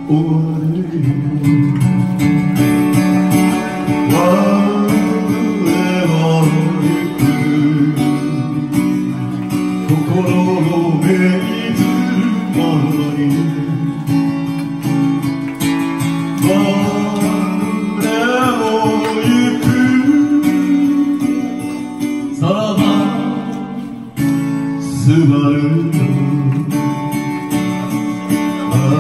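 A man singing into a microphone while playing an acoustic guitar: a live solo song with guitar accompaniment.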